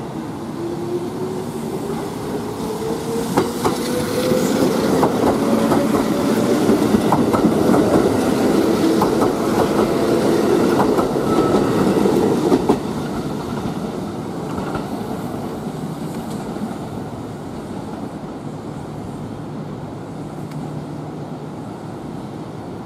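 Kintetsu 12200 series electric limited express pulling away. A whine rises in pitch as the train gathers speed, and many sharp wheel clicks sound over rail joints and points as the cars pass close. About 13 seconds in the sound drops suddenly to a fainter, steady running noise as the train curves away over the points.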